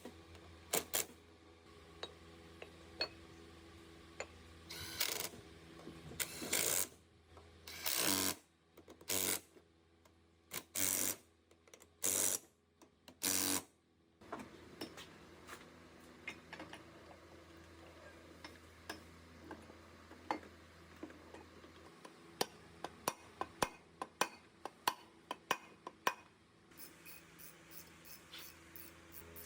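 Workshop hand-work on metal machine parts: scattered metal clicks and knocks, several short scraping or brushing bursts in the first half, then a run of even clicking about four times a second near the end, over a low steady hum.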